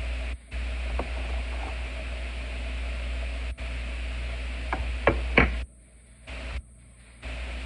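Metal fork tapping and clicking against a plastic container while stirring and lifting cooked noodles, a few light clicks with the loudest a little past the middle. Behind them runs a steady hiss with a low hum that cuts out briefly several times, mostly near the end.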